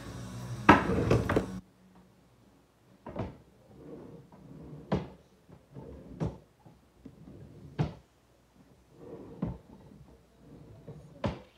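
A loud burst of rustling close to the microphone in the first second and a half, then a string of six sharp knocks and clicks about every one and a half seconds, with quieter shuffling between them.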